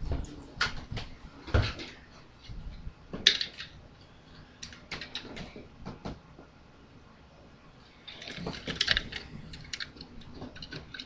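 Handling noise: scattered clicks, taps and light knocks as a die-cast model car is picked up, turned over and set down, with a denser run of clicks and rustling about eight to nine seconds in.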